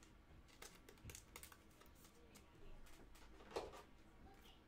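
Near silence with a few faint, scattered clicks and one soft rustle about three and a half seconds in.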